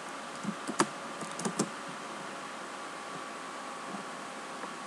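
Computer keyboard keys being typed: a few separate keystrokes in the first second and a half, then only a steady background hiss.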